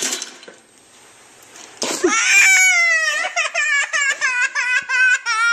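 A toy pops open with a sudden clack at the start. About two seconds in, a toddler bursts into loud, high-pitched crying that pulses in sobs a few times a second, startled by the toy.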